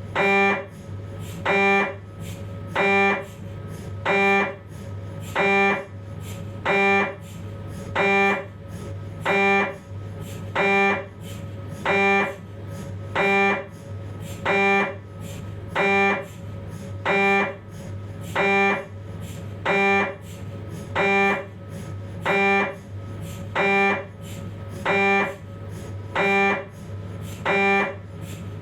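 Philips 1.5 T MRI scanner's gradient coils sounding a pitched buzz of under half a second, repeating evenly about every 1.3 seconds, with a steady low hum between the pulses, while running a 3D T2-weighted lumbar spine sequence.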